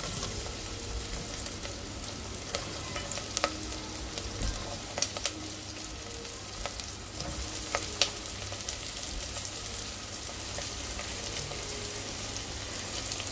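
Hot oil sizzling steadily in a pressure cooker as chopped vegetables are tipped into the frying onion, with several sharp clicks in the first half.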